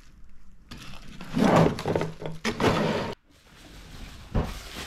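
Plastic bubble wrap rustling and crinkling in bursts as a pump is pulled out of its wrapping, with a short knock near the end.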